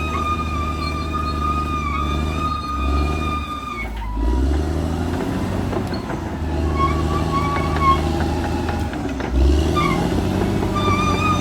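Caterpillar D6R XL bulldozer's diesel engine running under load, with a steady high-pitched whine over it. About four seconds in the engine sags, then picks up again, and it dips once more near the end.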